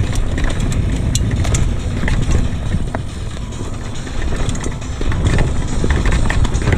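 Downhill mountain bike ridden fast over a dirt trail: a loud, steady rumble of wind on the microphone and tyres on the ground, with scattered clicks and knocks of the chain and frame rattling over bumps.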